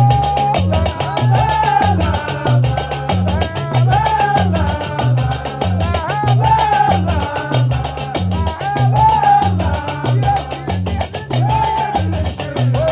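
Gnawa music: iron qraqeb castanets clattering in a fast, steady rhythm over a repeating low bass figure plucked on a guembri, with men singing together above it.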